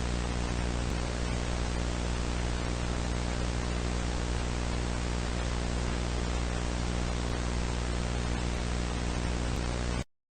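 Steady static hiss with a low buzzing hum under it, cutting off abruptly into silence near the end.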